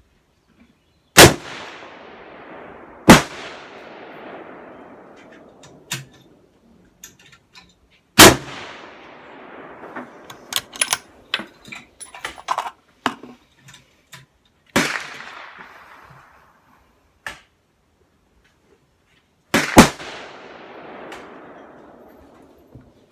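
Rifle shots fired on an outdoor range: about five loud, irregularly spaced cracks, each trailing off in a long rolling echo. Quieter clicks and knocks fall between the shots, mostly in the middle stretch.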